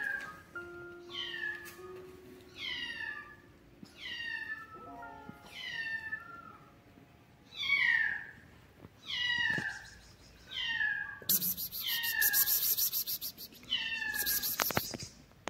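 A litter of kittens meowing over and over: short, high cries that fall in pitch, about one a second. For a few seconds near the end a crackling rustle joins them.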